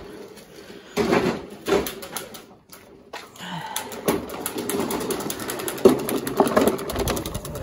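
Craftsman gas push mower being rolled out with its engine off, its wheels and deck rattling and clattering over the ground. There are a couple of knocks about a second in, then a brief lull before steady rattling.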